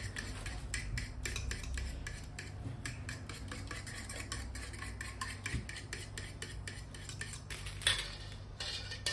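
A metal fork whisking liquid batter in an enamel bowl, its tines clicking quickly and repeatedly against the bowl, with one louder knock near the end.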